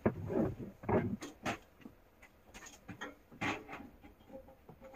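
Irregular knocks, clicks and rustling of someone moving about and handling things, louder in the first half and thinning out near the end.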